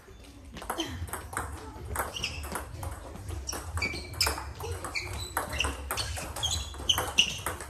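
Table tennis rally: the ball clicking off the rackets and the table in quick alternation, about three sharp clicks a second, with a couple of harder hits near the middle and end.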